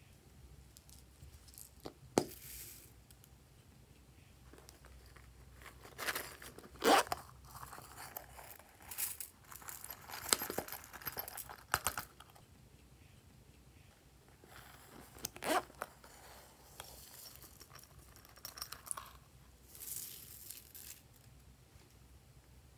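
Crinkly rustling and pattering in irregular bursts as loose plastic sequins are handled and poured onto slime in a glass tray.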